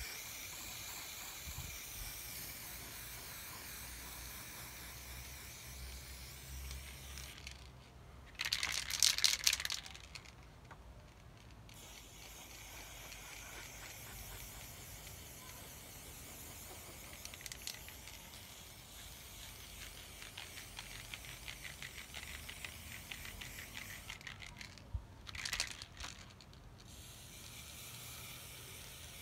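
Aerosol spray-paint can hissing in long passes. Twice, once about a third of the way in and again near the end, the spraying stops for a short, loud rattle, as of the can being shaken.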